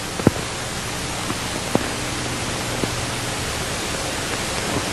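Steady hiss from an old film soundtrack, with a few faint, irregularly spaced knocks, fitting footsteps on a hard floor.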